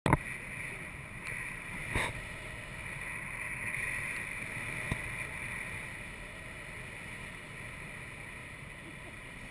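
Steady wind rushing over a camera mounted on a parasail rig high above the sea, with a few sharp knocks from the rig: one right at the start, one about two seconds in and one about five seconds in.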